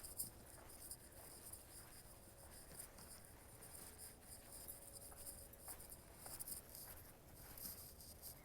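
Faint high-pitched insect chirring, a steady flickering pulse.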